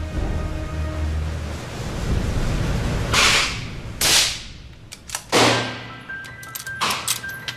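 Gunshots at a shooting range: four loud shots about a second or so apart in the second half, each trailing off in a short echo.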